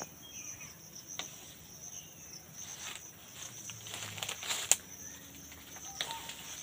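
A steady, high-pitched insect drone with leaves rustling and twigs clicking as the branches of a rose apple (jamrul) tree are handled. One sharp snap comes about two-thirds of the way through.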